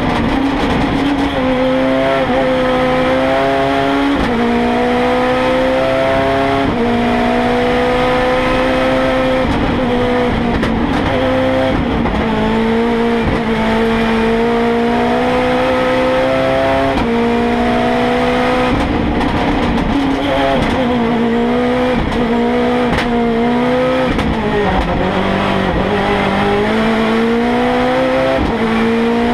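A Ford Fiesta hillclimb race car's engine heard from inside the cabin, running hard at racing speed. Its pitch climbs and then falls back sharply again and again as the driver shifts gears and lifts for corners.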